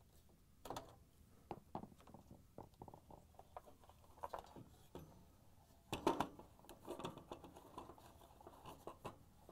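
A string of faint plastic clicks, taps and rattles from unplugging a wire connector and handling a washing machine's plastic motor control board housing, the loudest about six seconds in.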